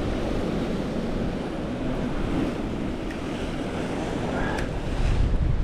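Sea surf washing against rocks, with wind buffeting the microphone. The low rumble swells louder near the end.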